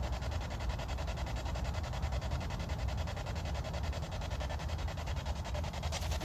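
Spirit box, a handheld radio scanner sweeping through stations, putting out steady static hiss chopped into a fast, even stepping rhythm as it sweeps.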